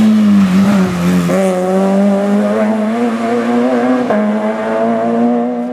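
Peugeot 106 rally car's engine held at high revs under load as it drives through a corner close by, its pitch wavering. The revs dip about a second in and break briefly about four seconds in, like gear changes.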